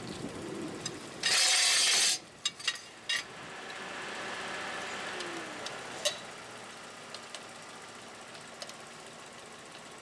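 A loud rushing, hiss-like burst of just under a second about a second in, then a few sharp metallic clicks as the lug nuts on a pickup truck's wheel are worked on.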